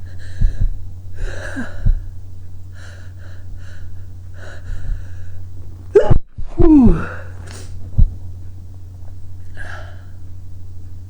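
A man gasping in short, sharp breaths several times as a sneeze builds, then sneezing loudly about six seconds in, the sneeze's cry falling in pitch, followed by a few more breaths. A steady low hum runs underneath.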